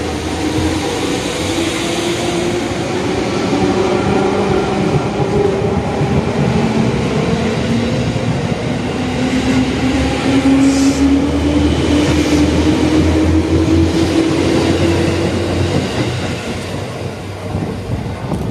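Seibu 10000 series "Red Arrow Classic" limited express train pulling out of the station, its traction motors whining and rising slowly in pitch as it accelerates over the rumble of its wheels. The sound fades in the last couple of seconds as the train moves away.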